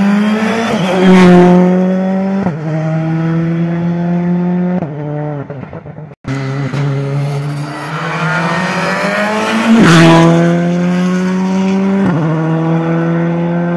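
Two rally cars at full throttle, one after the other: the engine climbs in pitch and drops sharply at each upshift, loudest as each car goes by close. A brief break about six seconds in separates the two passes.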